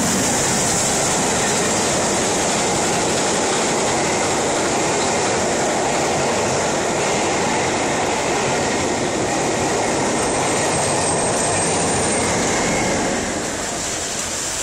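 Carriages of a steam-hauled passenger train passing at speed close by: a loud, steady rush of wheels on rail, dropping away about 13 seconds in as the last coach goes by.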